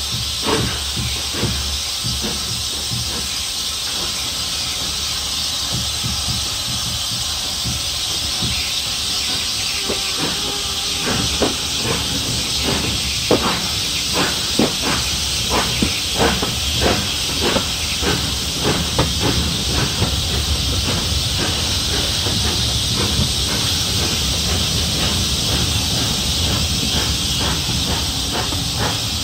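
Steam locomotive hissing steam while the train moves off, with a low rumble underneath. From about ten seconds in, for about ten seconds, a run of sharp knocks comes roughly twice a second.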